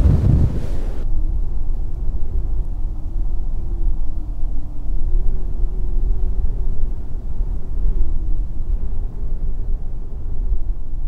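Wind buffeting the microphone: a loud, uneven low rumble, with the hiss above it cutting off suddenly about a second in.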